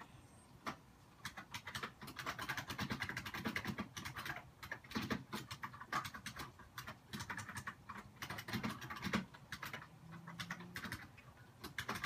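Domestic cat chattering at birds through a window: a rapid, uneven run of clicking chatter that comes and goes in spurts.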